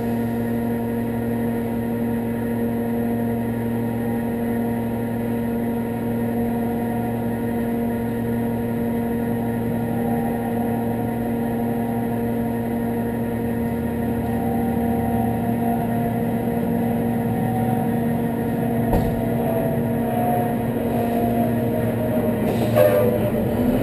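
Large truck's engine idling with a steady hum. Two short knocks come near the end.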